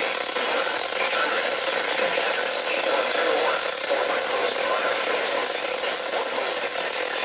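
Steady radio static hiss from a received broadcast, an even rush of noise with no tones or clear speech in it.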